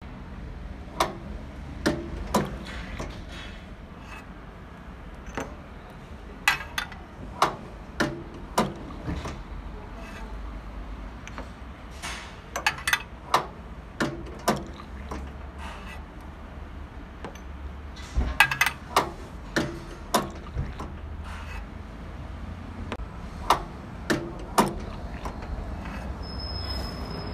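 Stainless-steel manual yogurt filling machine working with glass jars: sharp metallic clicks and clacks, often two or three in quick succession, as jars are pressed against the actuating plate and filled. A steady low hum runs underneath.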